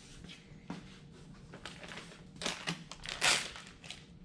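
Crinkling and rustling of an alcohol-wipe packet being handled, in short irregular rustles with a louder crackly burst about three seconds in.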